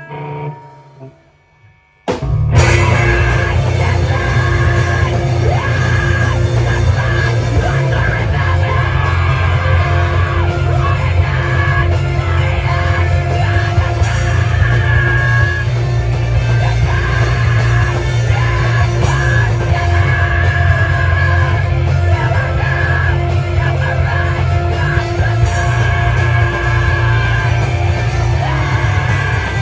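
Live rock band in a small room: after a quiet, fading start, the full band crashes in loud about two seconds in, with drums, electric guitar and a voice yelling over it, and keeps playing steadily.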